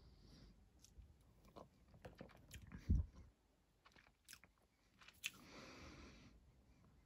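Mouth sounds of a person sipping and tasting whisky: small wet clicks and smacks of the lips and tongue, with one low thump about three seconds in and about a second of breathy hiss near the end.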